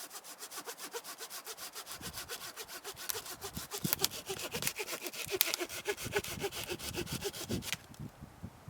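Hand saw cutting through wood with fast, even strokes that stop abruptly about a second before the end.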